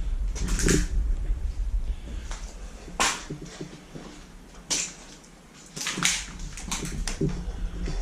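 Scattered sharp crunches and knocks, about six in all, from footsteps and movement over debris.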